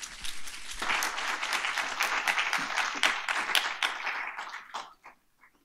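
Audience applauding, growing fuller about a second in and dying away near the end to a few last scattered claps.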